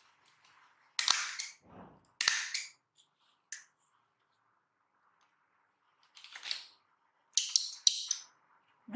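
Short, sharp crinkling rips from a small disposable diaper being handled and fastened, its tape tabs pulled: about six quick bursts, two close together near the end.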